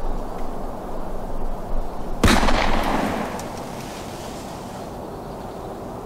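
One rifle shot fired a couple of hundred yards off, about two seconds in: a sudden crack with an echo rolling away through the woods for about a second.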